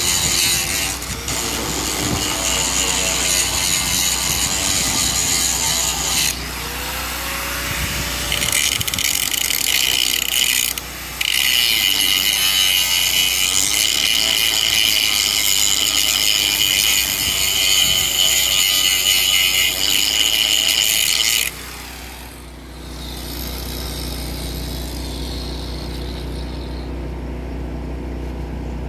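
Electric angle grinder grinding down a weld seam on a steel tank: a loud, hissing grind with a short break or two, which stops suddenly about three quarters of the way through. A steady low engine hum runs underneath and is left alone at the end.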